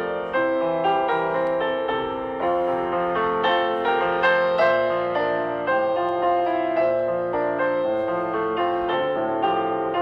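Background music: a gentle melody on piano, with new notes about twice a second.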